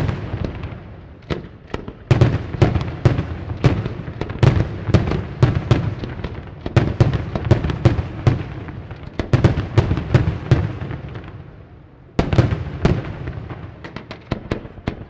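Aerial fireworks shells bursting in a dense, rapid run of overlapping bangs, easing off briefly before a fresh volley about twelve seconds in, which then thins out.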